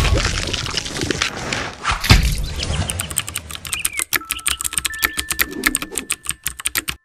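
Title-card sound effects: a wet splat impact at the start and another about two seconds in, then a rapid run of typewriter-like clicks, several a second, while text is written on. A couple of short steady tones sound during the clicking.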